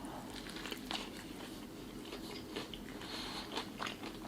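A person chewing food close to the microphone: faint, irregular small clicks and mouth sounds.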